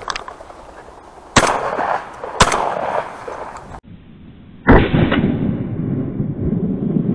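Shotgun fired at flushing mallards: two sharp shots about a second apart, then a third shot followed by a long, muffled rumbling tail.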